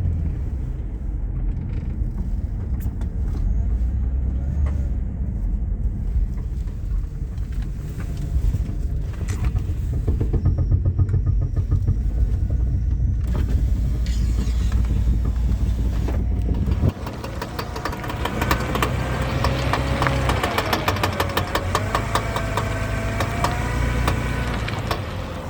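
Car driving, heard from inside: a heavy low rumble from the drivetrain, the noise the owner is chasing and suspects comes from the differential spider gears. About seventeen seconds in the rumble drops away and a rapid clicking with a wavering whine takes over.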